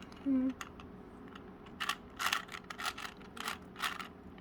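Plastic 3x3 Rubik's cube being twisted, its layers clicking as they turn; a run of quick clicks comes in the second half.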